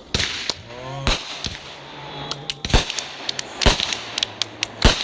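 Consumer fireworks going off: a run of sharp bangs and smaller pops, with four loud bangs spaced about a second apart from about a second in.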